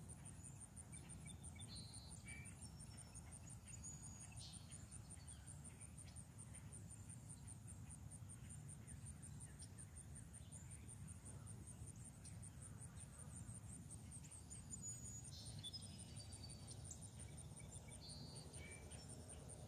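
Faint, steady, high-pitched insect trilling that pulses rapidly and evenly throughout, with a few soft bird chirps early on and again near the end.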